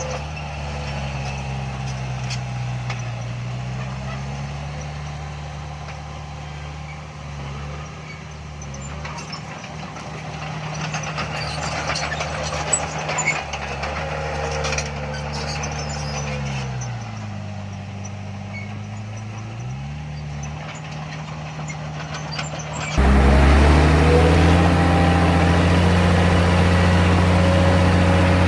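Diesel engine of heavy earthmoving equipment working, its pitch sagging and recovering twice under load, with metallic clanks and rattles in between. About 23 seconds in, the sound cuts abruptly to a louder, steady engine.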